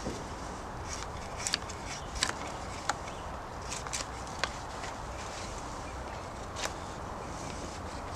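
Blade carving shavings off a wooden stick: about seven short, sharp scraping strokes at irregular intervals, over a steady background hiss.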